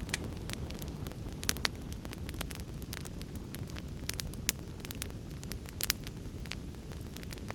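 Fire crackling: a steady low rumble of flames under frequent sharp pops and snaps, with a few louder pops about a second and a half in and near six seconds.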